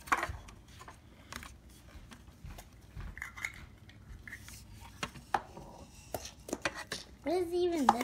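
Scattered light clicks and knocks of hands handling a small plastic-and-aluminium telescope and its mount. A short voice sound comes near the end.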